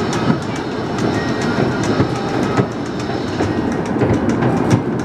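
Miniature train's passenger cars rolling along the track, a steady rumble with the wheels clattering and clicking over the rails.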